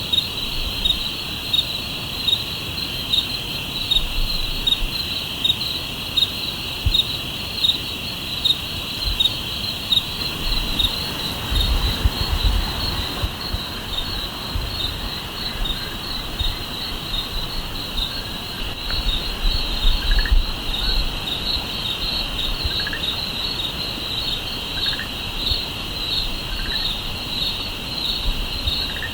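Night insect chorus of crickets: a steady high trill with a louder chirp repeating evenly, a little faster than once a second. A few short, softer calls lower in pitch join in during the second half.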